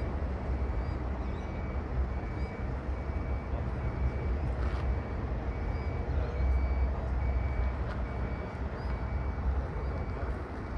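Airport ambience: a steady low rumble of distant jet engines and wind, with a short high beep repeating about once a second and a few faint bird chirps.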